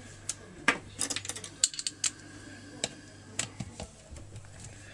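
Irregular small metallic clicks and taps as hands fit parts and a screw back onto a disassembled chainsaw, some coming in quick clusters about one and two seconds in.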